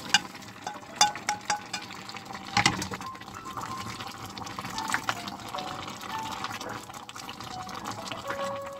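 Chopped vegetables being tipped from one stainless-steel pot into a simmering beef stew and stirred in, over a steady wet bubbling. A few sharp clanks of cookware come in the first three seconds, the loudest about two and a half seconds in.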